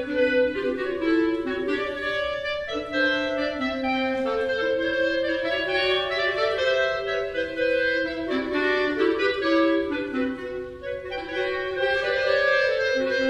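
Clarinet ensemble playing several overlapping held notes that shift in pitch every second or so, the parts weaving over one another.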